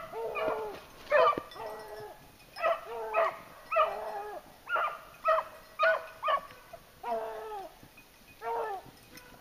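Beagles baying: a run of drawn-out, falling howls, about one or two a second, stopping near the end. It is the trail voice of rabbit hounds on a cottontail's scent.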